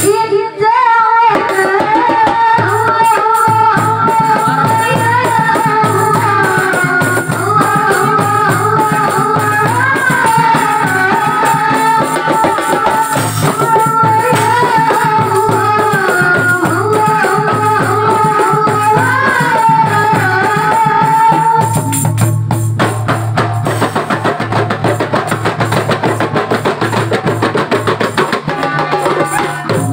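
Marawis ensemble playing: a woman sings a wavering melody over hand drums and a jingling tambourine. About two-thirds of the way through the voice stops and the drums and rhythm play on alone.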